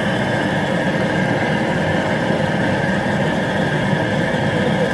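Outdoor propane burner running steadily under a 60-quart boiling pot of heating water, an even, unbroken rushing noise.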